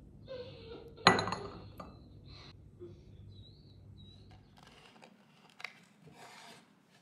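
A ceramic coffee cup set down on its saucer with a sharp, ringing clink about a second in. Softer handling and rubbing sounds follow, with a small click as the lid of a woven rattan box is opened near the end.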